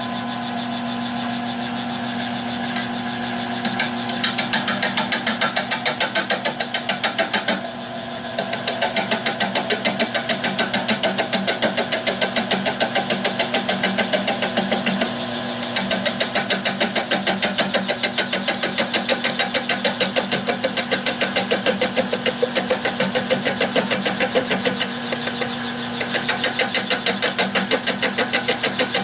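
Nova 16/24 wood lathe running with a steady motor hum, and about four seconds in a 1/2-inch bowl gouge starts cutting the rough, out-of-round oak blank, giving rapid, evenly spaced knocking of an interrupted cut, with a few brief pauses as the tool comes off.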